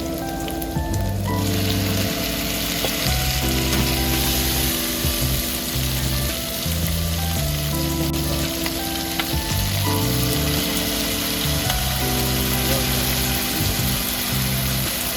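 Assorted meat, seafood and vegetables sizzling as they fry in hot oil, with a steady crackling hiss and background music.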